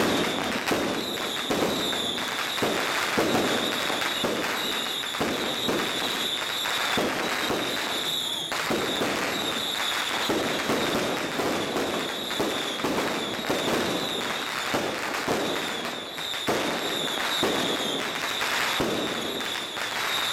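Strings of firecrackers going off: a dense, continuous crackle of rapid pops that runs without a break.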